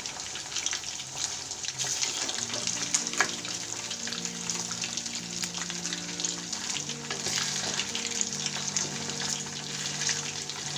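Marinated chicken lollipops deep-frying in hot oil in a steel kadai, a steady crackling sizzle full of small pops, while a perforated steel ladle turns the pieces in the oil.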